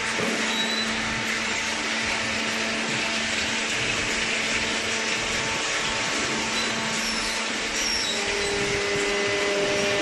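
Cardboard baling machinery running: a steady whirring drone with a constant low hum, and a second, higher hum that joins about eight seconds in.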